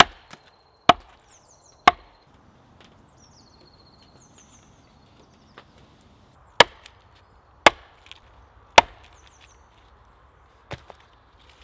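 Hatchet chopping into a stick of wood on a stump chopping block, splitting it: three sharp strikes about a second apart, then after a pause three more at the same pace, and a lighter knock near the end.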